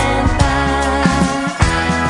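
Background music: an instrumental stretch of a song, with held chords and a steady drum beat.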